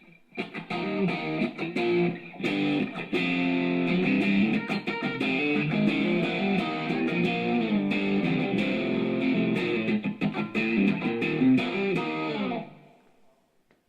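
Electric guitar played through an amp with effects, a continuous passage of chords and notes that starts about half a second in and stops abruptly about a second before the end.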